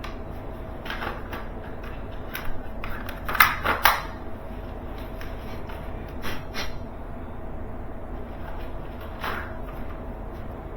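Tokyo Marui FN 5-7 gas blowback airsoft pistol being handled, giving a scatter of sharp clicks and clacks. The loudest are two close together about three and a half seconds in, with fainter ones around one, two and a half, six and nine seconds in.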